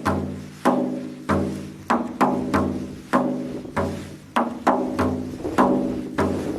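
Background music: a melody of struck, pitched percussion notes, each ringing out and fading, about two to three notes a second.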